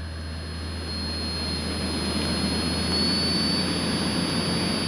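Carbureted piston engine of a single-engine propeller airplane droning steadily in the cockpit, with a thin steady high whine over it; the drone grows louder over the first three seconds, then holds. The engine is running with carburetor heat on to clear carburetor ice, and sounds smoother.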